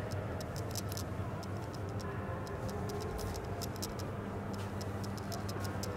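Steady low hum with light, irregular ticking clicks over it, several a second.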